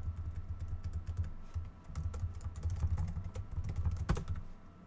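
Typing on a computer keyboard: a quick run of keystrokes with one louder key strike about four seconds in, then the typing stops near the end.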